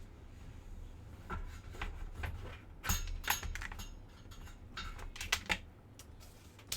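Scattered plastic clicks and knocks of a computer keyboard and its cable being handled and moved, at an uneven pace rather than a steady typing rhythm, the loudest cluster about three seconds in.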